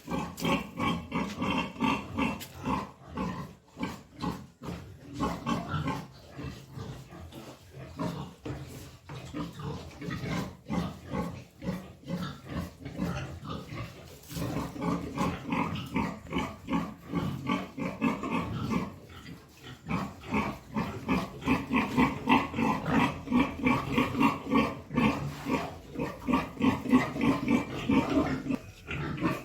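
Pigs (a sow and her large piglets) grunting in a continuous rapid run of short calls, several a second, growing louder in the second half.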